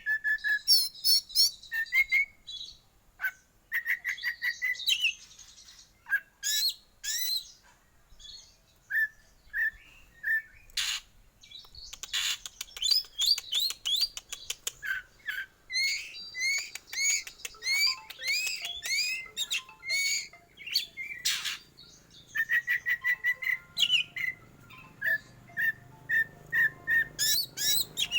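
Black Oriental magpie-robin (kacer hitam) singing: bursts of rapid, sharp repeated notes and quick whistled phrases sweeping up and down, broken by short pauses.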